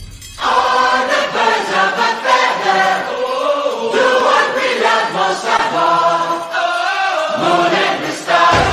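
Music with a choir singing, starting about half a second in after a brief dip; the low end is nearly absent until deep bass comes back near the end.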